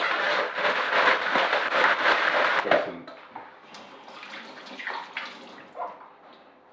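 Oiled tortilla chips being tossed by hand in a glass bowl: a dense, crackly rustle that stops about three seconds in, followed by a few faint light clicks.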